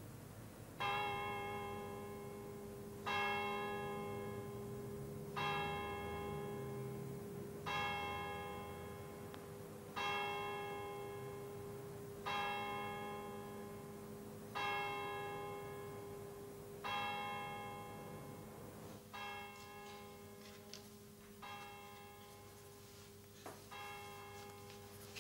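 A bell striking the hour with slow, evenly spaced strokes about two and a half seconds apart, each ringing on and dying away. The first eight strokes are strong and the later ones come softer.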